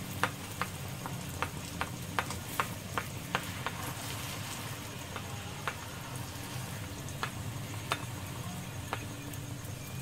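Hot oil sizzling steadily around a dough katori shell deep-frying over a steel bowl on low heat. Sharp ticks and pops come thick over the first few seconds and thin out after that.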